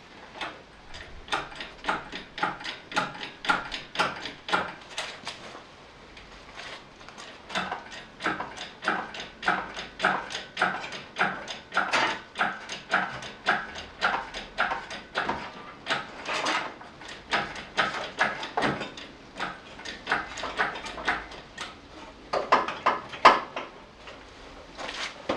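Engine hoist lifting a Ford 4.0L engine out of the bay: a long run of regular ratcheting clicks with a squeaky ring, about three a second, pausing briefly a couple of times.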